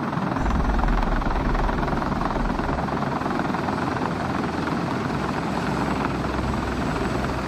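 Sikorsky CH-53 heavy-lift helicopter hovering low overhead. Its rotors and three turbine engines make a steady, deep noise.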